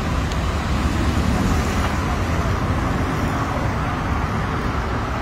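Steady city street traffic noise: cars driving past on a busy road.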